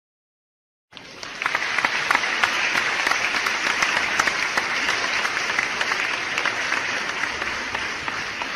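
Applause from a crowd, many hands clapping at once. It starts abruptly out of silence about a second in, keeps up steadily, and eases off slightly near the end.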